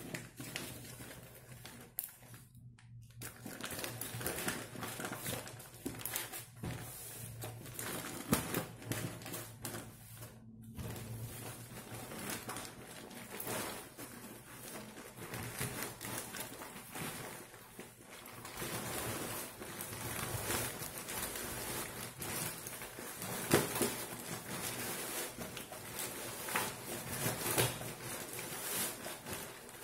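Plastic parcel wrapping and packing tape rustling and crinkling as they are pulled off a cardboard box by hand, in irregular crackles with a couple of short pauses.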